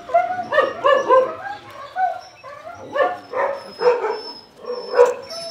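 A dog yelping and whining in a run of short, high cries, several a second, with a louder yelp about five seconds in.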